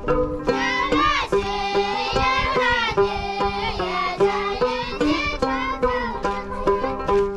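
A folk song: a voice sings a melody over a plucked string instrument playing a steady, repeating pattern. The voice comes in about half a second in and stops about a second before the end, leaving the plucked strings alone.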